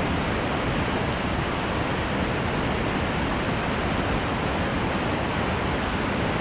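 Steady, loud rushing of a whitewater rapid, with water pouring around and over boulders close by.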